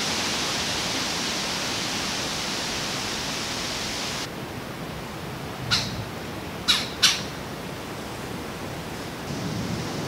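Wind rushing through the leaves of the forest canopy, a steady hiss that cuts off about four seconds in. In the calmer stretch after it, three short, harsh bird calls sound at about six and seven seconds in.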